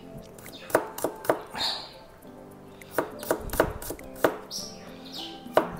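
Kitchen knife slicing garlic cloves on a cutting board: about eight sharp, irregular chops.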